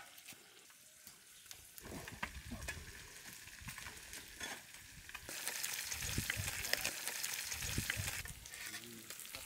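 Whole marinated fish frying in oil in a wide pan, the oil sizzling and crackling, with knocks and clicks from a metal spatula handling the fish. The sizzle swells louder about halfway through, then eases off near the end.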